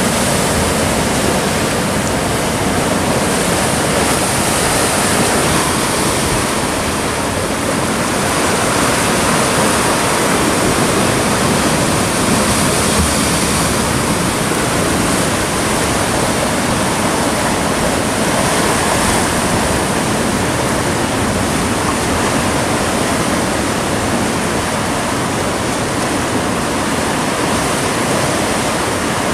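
Sea surf breaking over a rocky shore: a steady, loud rush of water.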